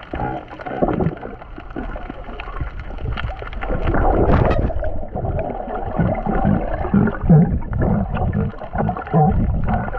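Underwater sound of water rushing and bubbling around the camera as a bull sea lion sweeps close past, loudest about four seconds in. It is followed by a series of short low underwater grunts or barks, the bull's territorial warning to the swimmers.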